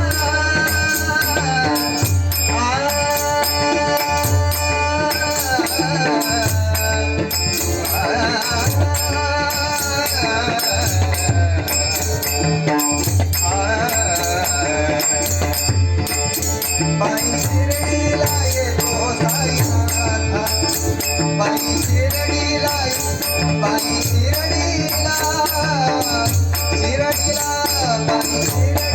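Bhajan in raag Bhairavi: a lead singer's long, wavering melodic lines answered by a chorus, over steady rhythmic percussion with regular metallic ticks.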